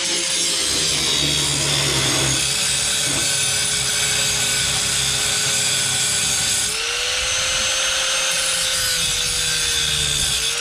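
Angle grinder cutting through rusted exhaust bolts at the catalytic converter joint, a steady metal-grinding hiss over the motor's whine. The motor note sags as the disc bites in about a second in, picks back up about two-thirds of the way through, and dips briefly twice more near the end.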